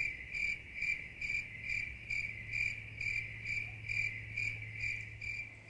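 A cricket chirping steadily, one short, clear chirp about every half second, over a faint low hum.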